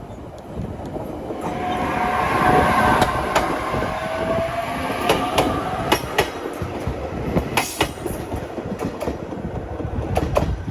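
Train passing slowly over the crossing, its wheels clicking irregularly over rail joints, with a high steady squeal from the wheels or brakes for a few seconds in the first half.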